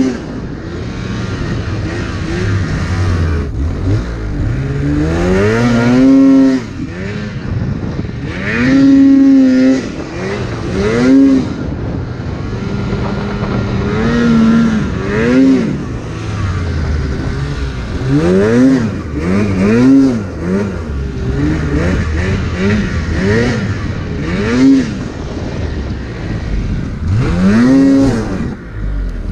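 Polaris RMK 800 snowmobile's 800 cc two-stroke twin engine revving again and again under load in deep powder, its pitch climbing and dropping with each throttle blip, about a dozen times.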